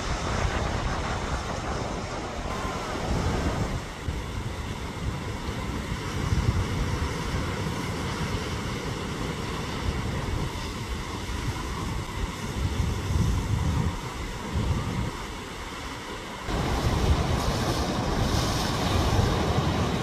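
Rough sea surging and breaking against rocks, with strong wind gusting across the microphone in low, uneven rumbles. After a brief lull, about three-quarters of the way through, the rushing abruptly gets louder and fuller.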